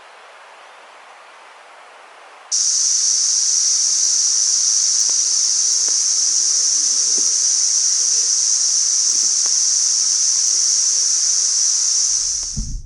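A steady high-pitched hiss starts suddenly a couple of seconds in, over a faint background hiss, and stops just before the end.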